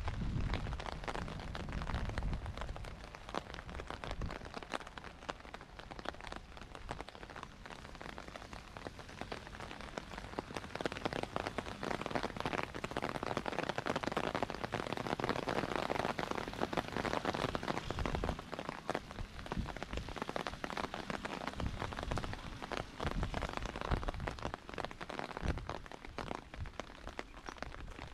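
Rain falling, a steady dense patter of many small drop ticks that swells a little in the middle.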